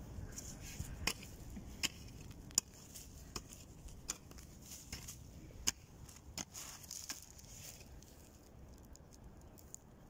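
Wild greens being picked by hand into a thin plastic bag: crinkling of the bag and leaves with a dozen or so sharp, irregular snaps and clicks as stems are broken off.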